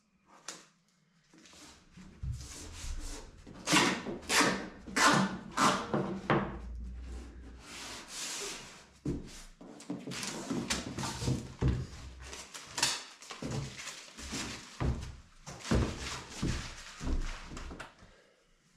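Masking tape being pulled off the roll in a series of short rasping tears, the loudest strips coming in quick succession about four to six seconds in, with knocks and scuffs on bare wooden floorboards in between.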